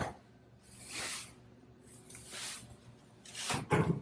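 A trigger spray bottle squirting in short hissing sprays, about one a second, as cleaner goes onto the glass before it is wiped. Near the end there is a heavier thump.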